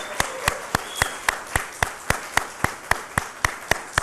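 Audience applauding, with steady rhythmic clapping in unison at about four claps a second.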